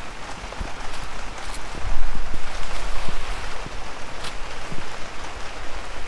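Heavy rain pouring steadily, with a low rumble on the microphone swelling about two seconds in.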